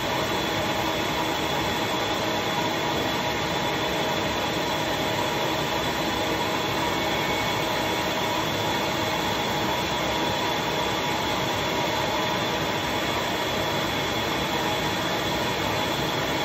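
Vacuum motor of a leaf-casting suction table running steadily, a constant whine over a rush of air, drawing the water out of freshly spread paper pulp.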